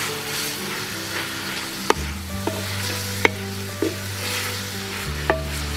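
Onion, tomato and green chili sizzling in oil in a clay pot while a wooden spatula stirs them, with a few sharp knocks of the spatula against the pot. Background music plays underneath.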